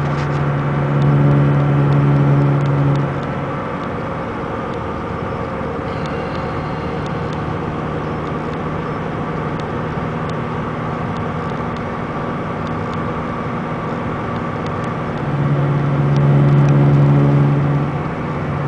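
Inside a moving 2002 VW Beetle TDI: steady road noise with a low droning hum that is strong for the first few seconds, fades, and comes back strongly near the end. The hum comes from a failing passenger-side front wheel bearing, which drones at road speed and comes and goes as the steering shifts.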